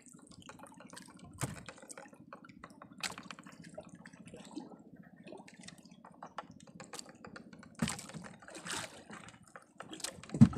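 Wet fishing handline being hauled in hand over hand: water dripping and splashing off the line, with scattered small clicks over a low steady hum, and a loud thump near the end.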